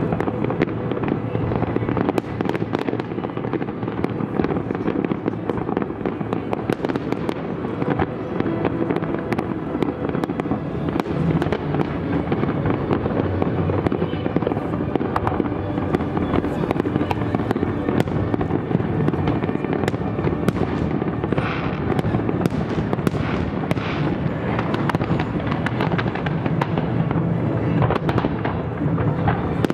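Fireworks display: aerial shells bursting in a dense, unbroken barrage of bangs and crackles. The sharp crackling grows busier in the last third.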